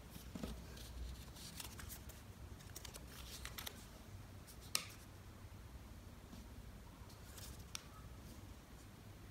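Origami paper rustling and crinkling faintly as hands fold and crease it, with one sharp click about halfway through.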